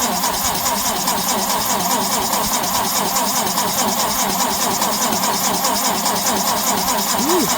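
Starter cranking the four-cylinder gas engine of a 1965 Lincoln SA-200 red-face welder in freezing cold, steadily at about four to five strokes a second without settling into a run. It does not sound happy, which the owner puts down to a possibly loose battery connection.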